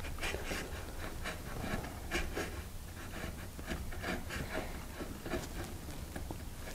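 Sandpaper rubbing on oak in quick back-and-forth hand strokes, about two or three a second, taking down a joint where one side stands slightly proud of the other.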